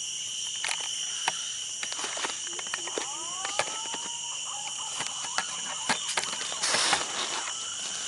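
Steady high-pitched drone of forest insects, with scattered sharp clicks and rustles. Two rising whistled calls come about three seconds in, and a short, loud rush of noise comes near the end.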